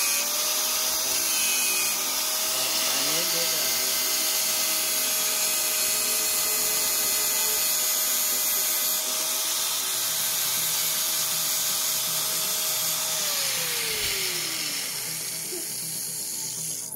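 Angle grinder with a sanding disc grinding a titanium weld on a bicycle frame, its motor whine steady under the grinding noise. About thirteen seconds in it is switched off and winds down, the whine falling in pitch.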